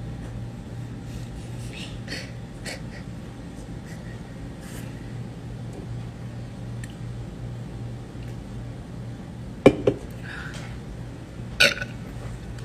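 Steady low hum of a quiet room with a few faint ticks. Near the end come two short, sharp sounds close together, then another about two seconds later.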